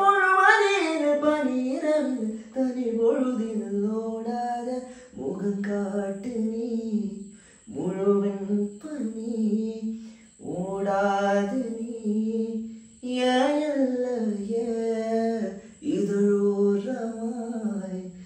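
A man singing solo and unaccompanied, a slow melody in about seven phrases of two to three seconds, with a short breath between phrases.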